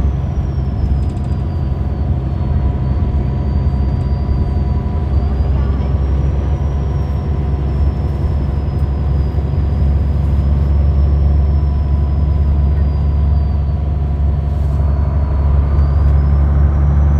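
Onboard sound of a MAN A20 city bus on the move: its MAN D2866 six-cylinder diesel runs with a steady low drone. A thin high whine slowly rises and falls over it, and the engine grows a little louder near the end.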